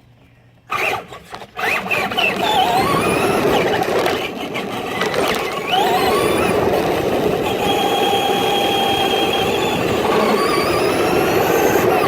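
Electric RC truck motor whining, its pitch rising and falling as the truck speeds up and slows, over a rough, noisy rush. It starts about a second in.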